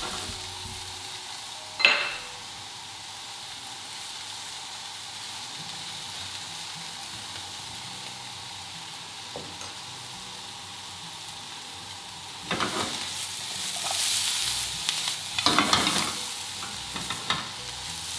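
Onion, cooked potato, trout chunks and spring onions frying in a non-stick pan with a steady sizzle. There is a single knock about two seconds in. From about twelve seconds in, a silicone spatula stirs and scrapes through the mix in irregular bursts.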